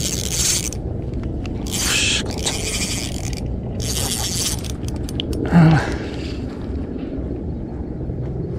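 Ryobi Smurfs 500 spinning reel being cranked in several short bursts of whirring, as line is retrieved on a bent ultralight rod. A short, loud low thump comes about five and a half seconds in.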